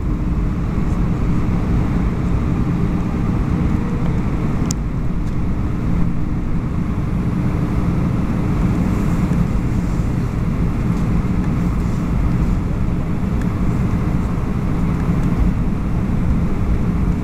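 Airbus A321-200 cabin noise while taxiing: the jet engines' steady low hum and rumble heard from a window seat, with one brief click about five seconds in.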